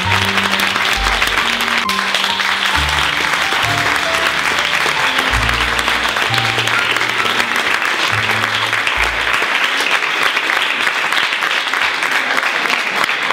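Sustained audience applause, steady throughout, with background music of low bass notes under it that stops about two-thirds of the way through.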